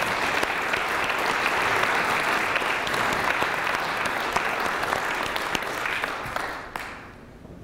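Audience applauding, a steady crowd of clapping that dies away about a second before the end.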